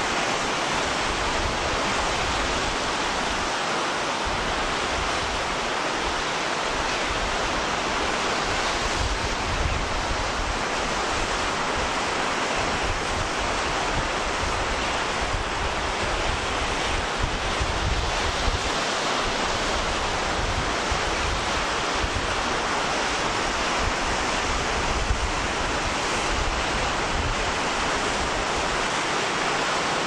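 Steady rush of sea surf and wind, with gusts of wind rumbling on the microphone.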